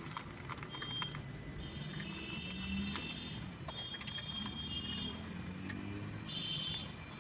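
Light clicking and rattling of small plastic fittings and tubes as an injector back-leakage test kit is pushed onto a diesel engine's injector return ports. Underneath is a low background hum, with faint high-pitched tones coming and going.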